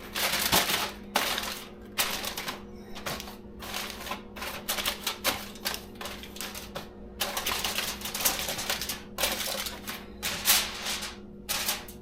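Aluminium foil crinkling and crackling in irregular spells as it is pressed and folded around a roasting pan, over a faint steady hum.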